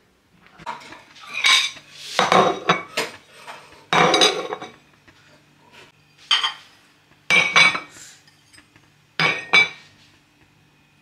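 Ceramic plates and bowls being set down on a countertop and stacked on one another: a series of sharp clinks, some with a short ringing tail, spaced out by brief pauses.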